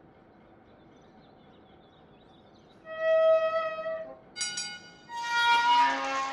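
Faint background hiss, then from about three seconds in a few held musical notes on a bowed, violin-like instrument: one long note, a short one, then a louder phrase whose pitch moves about.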